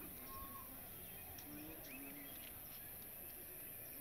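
Faint outdoor ambience: a low steady background rumble with a few scattered faint bird chirps.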